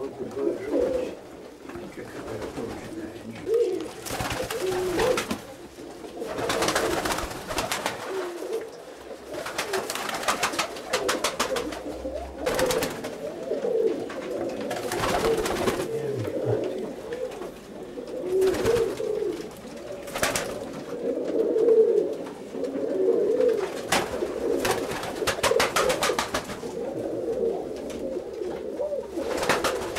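Domestic roller pigeons cooing continuously in a small loft, several birds calling over one another, with short noisy bursts every few seconds.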